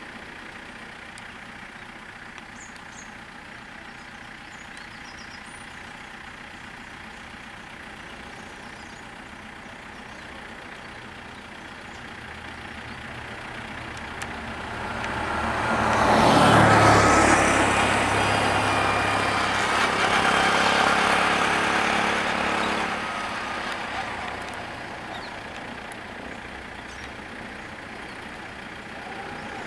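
Heavy diesel road vehicle engines: a steady low idle, then about halfway through a loud swell of engine and road noise that rises quickly, holds for several seconds and fades away.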